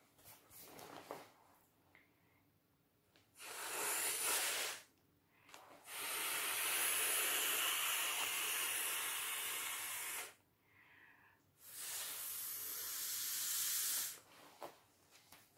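A person blowing by mouth into the valve of an inflatable vinyl swimming pool: three long breaths of rushing air, the middle one the longest, with short quiet pauses between them.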